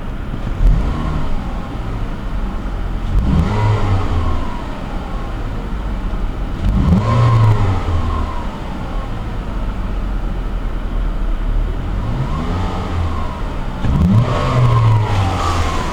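2013 Chevrolet Malibu LT's four-cylinder engine on its stock exhaust being revved in neutral, heard from inside the cabin. The pitch rises and falls back to idle several times, with the three strongest revs about three, seven and fourteen seconds in.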